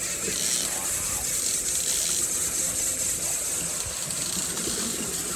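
Steady rush of water and wind noise, with a low rumble underneath.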